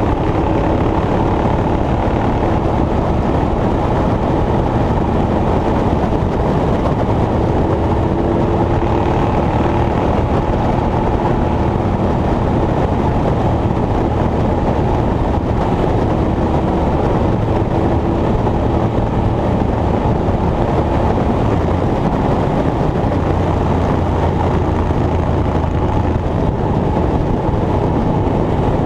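Steady, loud engine drone with a low rumble and faint shifting tones, running without a break.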